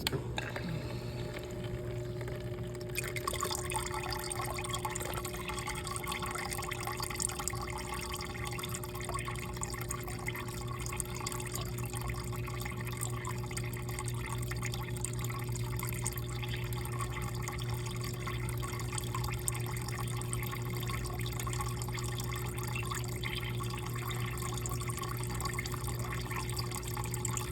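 Small electric water pump switched on by a relay, running with a steady hum, and about three seconds in water starts splashing as it pours into the container, filling it toward the sensor level.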